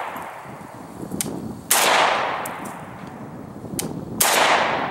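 I.O. Hellpup 7.62x39 AK pistol firing two single shots about two and a half seconds apart, each sharp crack followed by a long echo that dies away.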